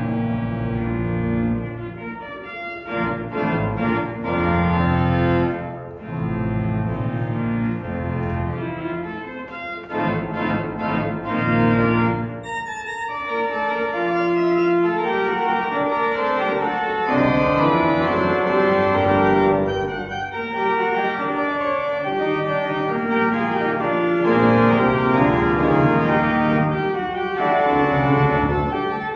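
Church organ playing the postlude: full held chords that change every second or so, with short breaks between phrases.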